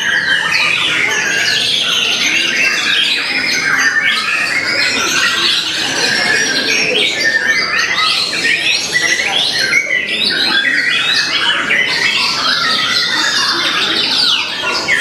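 Caged white-rumped shamas singing at once in a dense, unbroken chorus of overlapping whistled phrases and rapid chatter.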